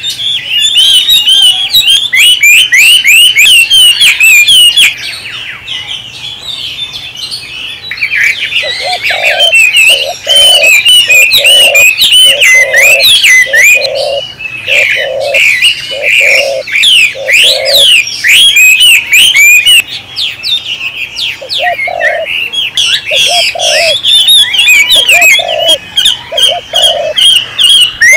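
Birds chirping and singing continuously in quick, varied, swooping notes. A run of short, low cooing notes repeats about once or twice a second from about 9 to 18 seconds in, and again from about 21 seconds in.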